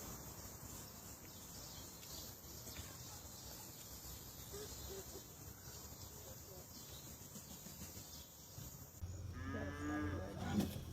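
Faint background noise, then about nine seconds in a farm animal's wavering call lasting about a second and a half, with a short knock near the end.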